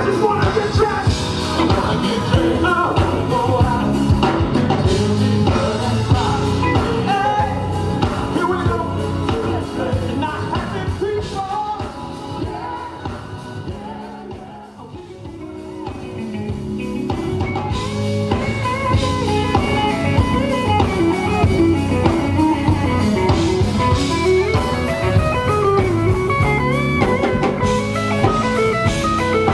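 Live R&B band playing: singing over keyboard, electric guitar and drum kit. The music drops low about halfway through and builds back up, with electric guitar lead notes in the second half.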